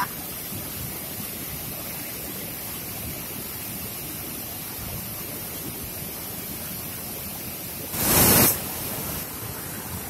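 Waterfall plunging into a rock pool, a steady rushing roar of falling and churning water, with one brief loud burst of noise about eight seconds in.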